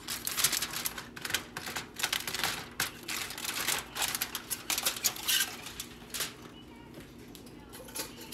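Aluminum foil crinkling and crackling in quick, sharp rustles as it is peeled back off a baking pan. It dies down about six seconds in.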